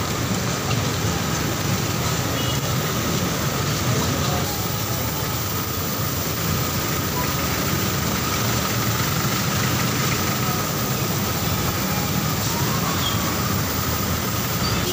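Heavy rain on a busy street, a steady unbroken noise, with the engines of buses and other traffic running close by.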